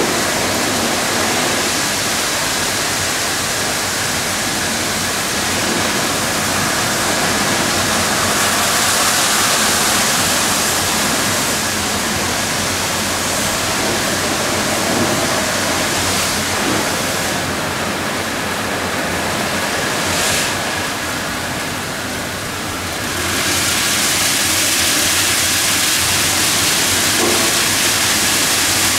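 Ceccato Hydrus Tech rollover car wash at work on a van: the rotating brushes scrub while water sprays, making a steady rushing hiss with a faint steady whine under it. The hiss thins out for a few seconds past the middle, then comes back.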